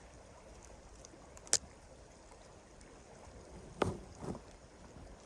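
Small creek water running steadily, with a single sharp click about a second and a half in and a brief knock near four seconds.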